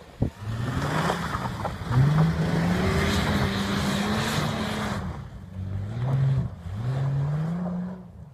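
Mercedes-Benz ML350's V6 engine revving up and falling back about four times as the SUV powers up a snowy slope, with a hiss of tyres spinning through snow for the first few seconds. The sound fades as the vehicle moves off near the end.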